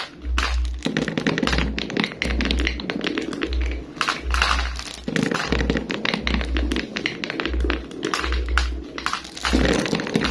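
Marbles clicking and rattling along a marble run track, many small taps in quick succession, over background music with a steady bass beat about once a second.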